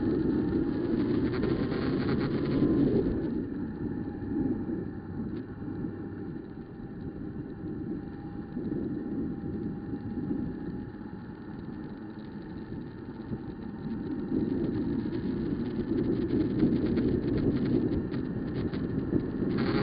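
Wind buffeting the microphone on a moving Honda CB1000R, with its inline-four engine running underneath; the engine pitch rises in the first few seconds. The wind rush swells and eases, loudest near the start and again in the last few seconds.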